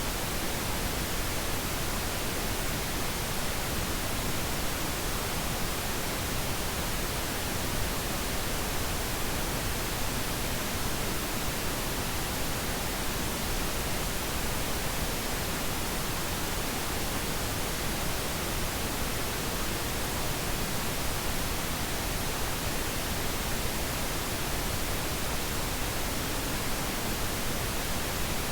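Pink noise: a steady, even hiss that does not change.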